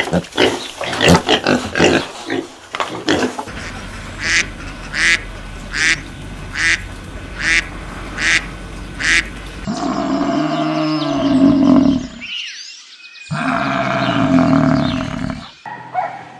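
Pigs grunting at a feeding trough, then a flock of domestic ducks quacking in a regular run of calls, about one a second. This is followed by several seconds of louder, drawn-out animal calls.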